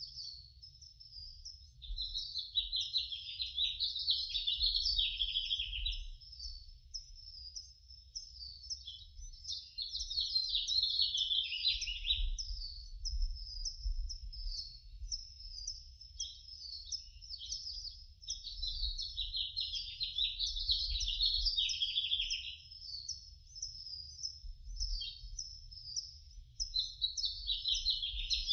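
Many small birds chirping and singing at once in a dense chorus that swells and fades every few seconds, over a low rumble.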